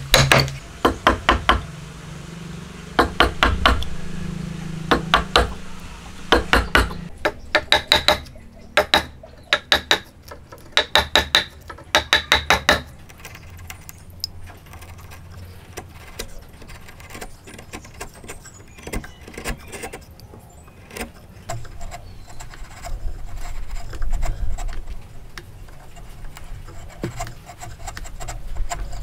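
Steel wood chisel being struck in quick bursts of sharp, slightly ringing blows, chopping a mortise into a timber, for about the first thirteen seconds. After that come quieter scrapes and light ticks as the chisel is pushed by hand, paring the cut faces of the joint.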